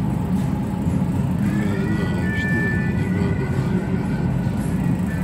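Steady low hum and rumble of supermarket refrigerated display cases and ventilation, with faint background music and tones about a second and a half in.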